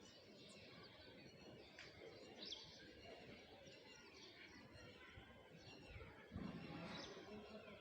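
Faint birdsong: several birds giving short high chirps and quick sweeping calls over a steady background hiss. About six and a half seconds in, a louder low sound comes in and lasts a second or so.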